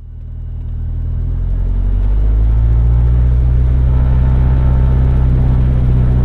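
Mooney M20J's 200 hp four-cylinder Lycoming engine running steadily, heard from inside the cabin as a low, even drone that rises in level over the first two seconds and then holds.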